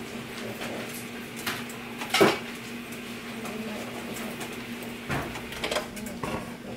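Cooking pots being handled on a stovetop: a sharp clink about two seconds in and a few lighter knocks near the end, over a steady low hum.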